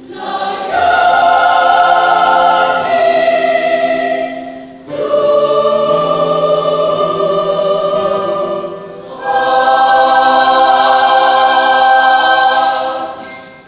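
Mixed church choir singing three long, held chords of about four seconds each, with brief breaths between them. The last chord dies away just before the end.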